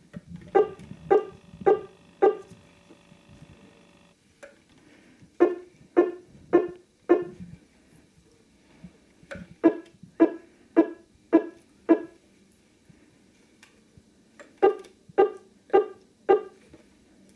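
A Casio mini keyboard sounding short single notes, mostly the same pitch, as a homemade robot arm's tip presses a key. The notes come in four runs of four to six, about two a second, with pauses of a couple of seconds between runs.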